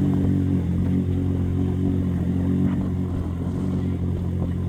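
Engine of an off-road UTV running steadily at an even pitch while rock crawling, with a few faint knocks.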